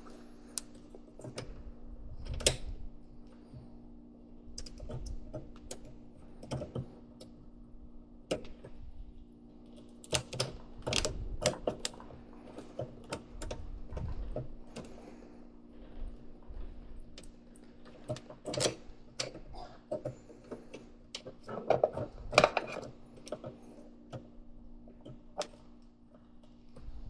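Irregular clicks and light knocks of hand work on a dishwasher installation, thicker in two busy stretches, over a steady low hum.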